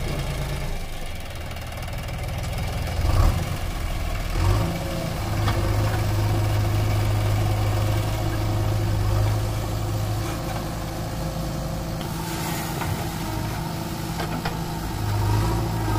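Diesel engine of a JCB 3DX backhoe loader running under hydraulic load as the backhoe arm digs and lifts soil, the engine note stepping up and holding about five seconds in. Two short knocks come a few seconds in.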